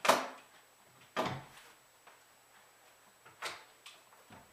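Staples being pulled out of a thin wooden chair board, each coming free with a sharp snap: a loud one right at the start, another about a second in, and a few lighter ones near the end.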